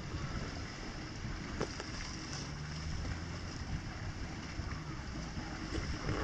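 Gentle sea waves washing on a sandy beach, with wind buffeting the microphone. A faint low engine drone comes in for a few seconds in the middle.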